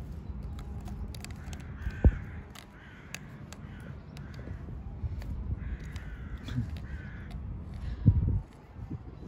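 Crows cawing in a few short bouts over a steady low rumble. Two dull thumps, one about two seconds in and one near the end, are the loudest sounds.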